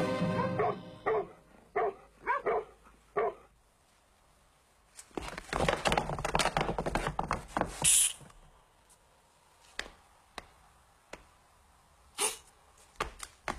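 Dog barking, about six short barks in the first three seconds. Then a loud noisy stretch of about three seconds, and a run of sharp taps toward the end.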